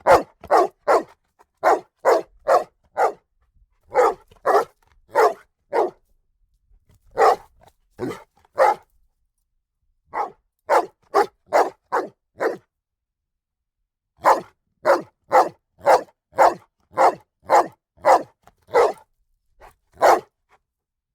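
A dog barking repeatedly and loudly, in quick volleys of sharp barks about two a second, broken by short pauses, with a longer pause about two-thirds of the way through.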